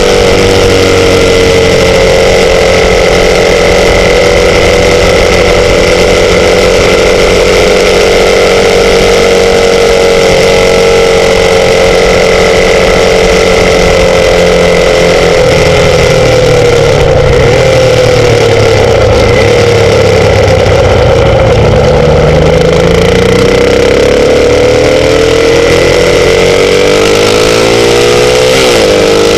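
Motorcycle engine running steadily, its pitch dipping about halfway through and then climbing again as the revs drop and build back up, with a steady high whine alongside.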